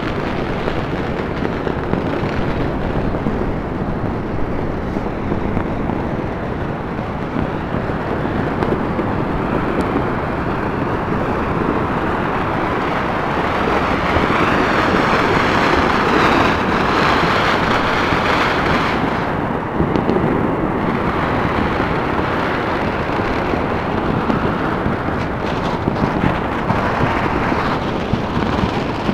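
Fireworks and strings of firecrackers going off all across the city at once, a dense unbroken crackling din, swelling louder for a few seconds about halfway through.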